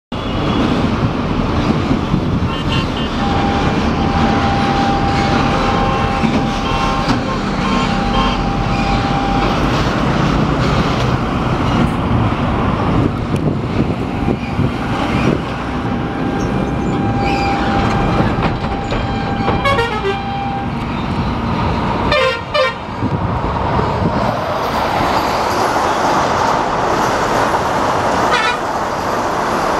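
A loud steady rumble with a long, steady horn note that sounds twice, each time for about six seconds. Near the end a rising rush of wheels and air comes in as the Vande Bharat Express electric trainset runs past at high speed.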